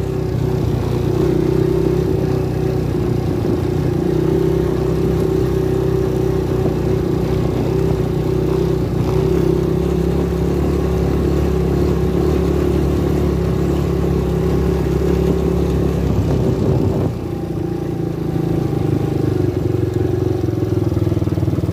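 A 250cc Lida ATV engine running while the quad is ridden, a steady drone. About seventeen seconds in the revs drop briefly as the throttle eases off, then pick up again.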